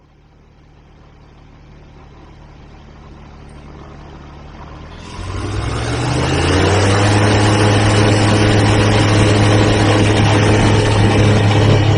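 Foxbat light aircraft's propeller engine running low and steady, growing gradually over the first few seconds, then opened up about five seconds in to a much louder, steady drone with a slightly higher pitch.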